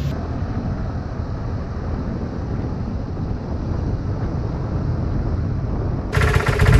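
Vespa GT 125 L scooter under way, its engine running steadily under the wind and road noise of riding. A voice starts near the end.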